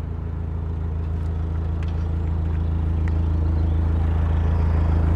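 Narrowboat's diesel engine running steadily at cruising speed, a low even chugging hum that grows slowly louder.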